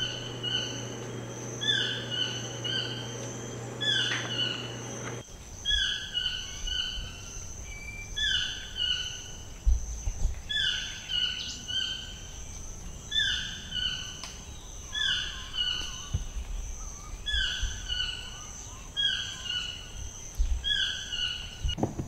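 A forest bird calling over and over, a short downward-slurred note about once a second, over a steady high-pitched insect drone. A low steady hum cuts off about five seconds in.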